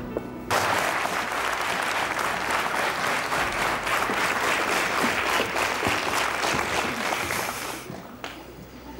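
Studio audience applauding: it breaks out suddenly about half a second in and fades away near the end.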